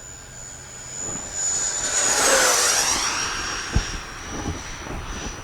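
Twin 70 mm electric ducted fans of an E-flite SU-30 model jet whining on a low fly-by. The sound swells to its loudest about two and a half seconds in, drops in pitch as the jet goes past, then fades. Wind buffets the microphone.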